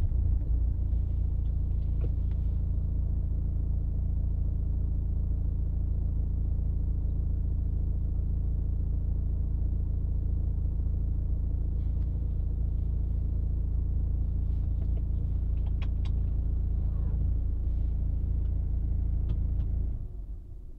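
Car engine idling, heard from inside the cabin as a steady low rumble, with a few faint clicks. It dies away about twenty seconds in.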